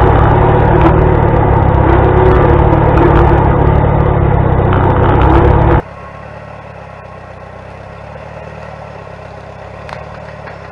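Antique tractor engine running loud and steady under load, pulling in second gear. About six seconds in, the sound cuts off abruptly to a much quieter steady engine running.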